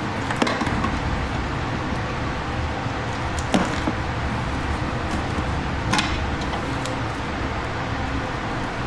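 Three sharp clicks and knocks from hand work on a car's headlight assembly, as parts are taken out, over a steady background hum and noise.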